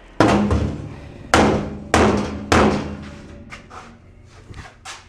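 Hammer blows on the container's sheet-steel wall to pull a gap together: four loud strikes in about two and a half seconds, each leaving a low metallic ring, then a few light knocks.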